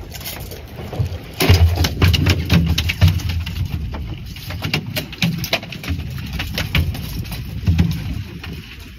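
A freshly landed barracuda thrashing on a boat deck: irregular slaps and thuds. They start about a second and a half in, come thickest for the next two seconds, then a few more follow.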